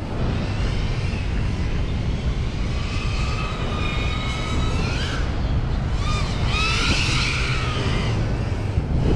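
FPV quadcopter's electric motors whining, the pitch sweeping up and down as the throttle is worked, with sharp rises about five seconds in and again around seven seconds. Steady wind rumble on the microphone underneath.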